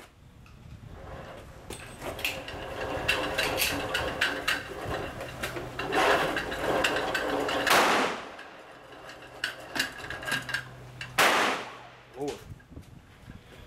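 Pistol shots from a Glock 23 in .40 S&W at an indoor range: a string of sharp, echoing cracks. The two loudest come about three seconds apart in the later part.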